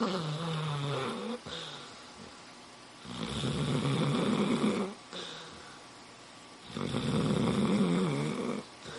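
Dog snoring: three long snores about three and a half seconds apart, the first with a low hum-like tone in it.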